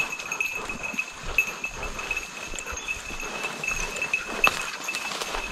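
Footsteps and rustling through forest undergrowth, with scattered sharp snaps, over a steady high-pitched tone.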